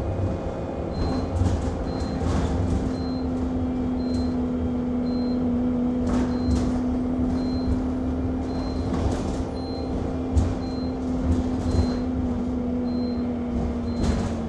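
Inside a moving Alexander Dennis Enviro 200 MMC single-deck bus: a steady drone of engine and road rumble with scattered rattles and knocks from the body. Over it, a short high-pitched electronic beep repeats about every 0.7 s without a break.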